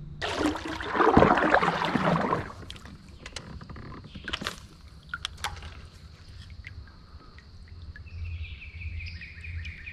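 Water splashing loudly at the side of a kayak for about two seconds, followed by a few sharp knocks of gear against the plastic hull. About eight seconds in, a fast, even ticking starts.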